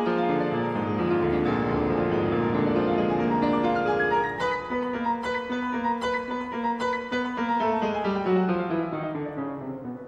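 Background instrumental music with sustained keyboard-like notes, dying away near the end.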